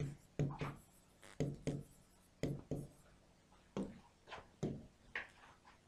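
Stylus writing and tapping on an interactive whiteboard screen: about ten short, irregular scratchy strokes.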